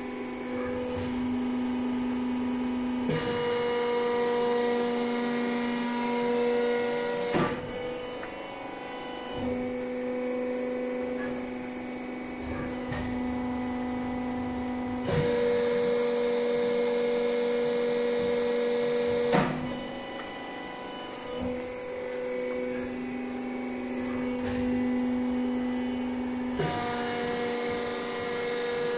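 Durma HAP 2580 CNC hydraulic press brake cycling empty in automatic: the hydraulic pump's steady hum changes pitch and loudness as the ram goes through its stroke and holds at full pressure. Sharp clunks come at the changeovers, about every twelve seconds, twice over.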